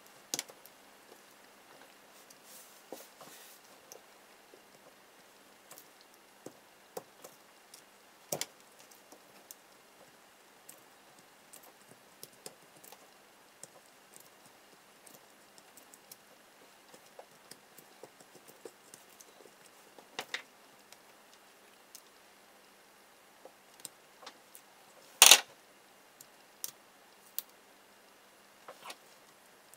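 Small scrapes and clicks of a thin metal pick working inside the aluminium can of an old electrolytic multi capacitor as its wound foil internals are dug out. The sounds come irregularly, with one louder, sharper scrape late on.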